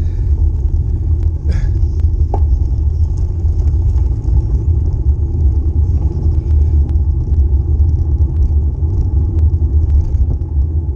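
Steady low wind buffeting and road rumble on a handlebar-mounted camera's microphone while a bicycle rolls over rough asphalt, with a few faint ticks.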